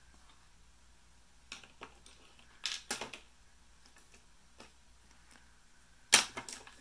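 Art tools being handled on a desk: a few short, sharp clicks and knocks, a pair about a second and a half in, another pair near the three-second mark, and the loudest single click about six seconds in.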